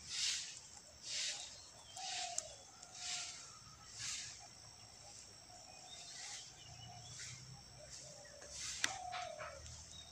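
A rabbit tearing and chewing a large leaf, with the leaf rustling and crackling in short bursts about once a second and a couple of sharp clicks. Faint bird calls sound in the background.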